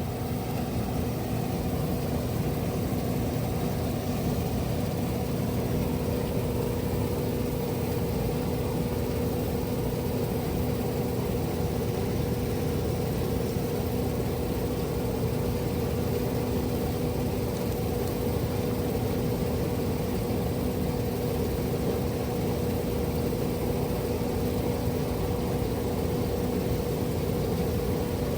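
Steady machine hum: a constant low tone with its overtone over an even rumble, holding at one pitch throughout.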